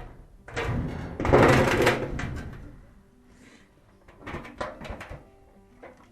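Sheet-metal dryer parts clattering and scraping as they are handled, loudest for a couple of seconds near the start, followed by a few light knocks.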